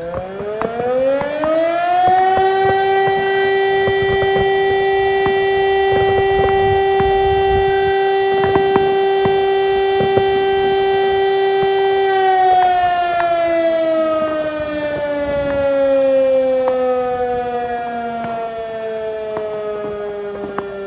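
Fire-brigade alarm siren sounding one long tone: it winds up over about two seconds, holds a steady wail for about ten seconds, then slowly winds down. It is the siren alarm calling out the volunteer firefighters.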